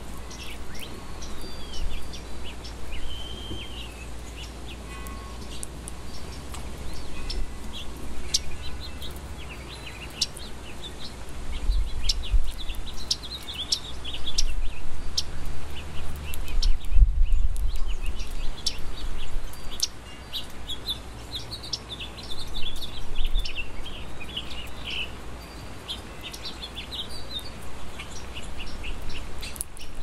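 Songbirds chirping and twittering in quick runs of short high notes, busiest around the middle and again later on. A steady low rumble runs underneath and swells briefly around the middle.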